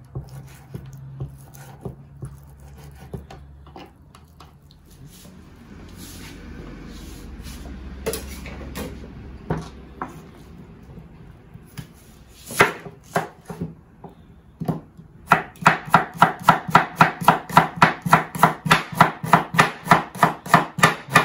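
Chef's knife chopping carrots on a wooden cutting board. A few scattered strokes come first, then about two-thirds of the way in a fast, even run of about four to five chops a second.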